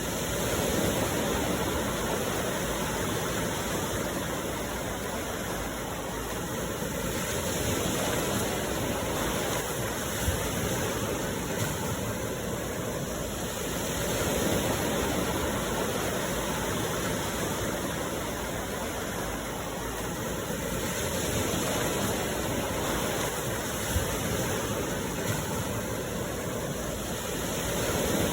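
Sea waves washing onto the shore, the surf noise swelling and easing about every six to seven seconds.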